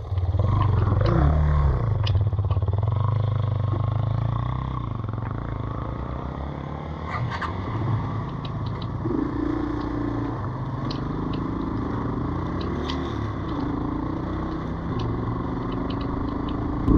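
Yamaha Serow 225's air-cooled single-cylinder four-stroke engine running, idling with the bike stopped and then pulling away to ride on, with a second engine tone joining about halfway through.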